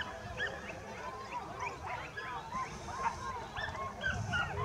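A pack of hunting dogs baying and yelping over one another during a wild boar chase: a quick, unbroken string of short, high cries from several dogs at once.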